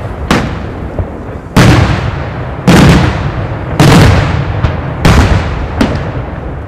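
Aerial firework shells bursting in a daylight display: a string of loud, sharp bangs about a second apart, each trailing off in a rolling echo.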